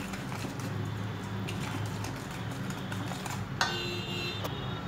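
Wire whisk beating yogurt and sugar in a stainless steel bowl: quick, light ticking and scraping of the wires against the bowl, with a ringing metal clink about three and a half seconds in.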